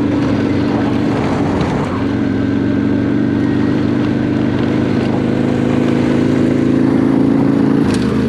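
Motorcycle engine running steadily under way on a dirt ride, with wind and road noise; the engine note climbs slightly in the second half. This is most likely the rider's own Honda NC700X parallel-twin.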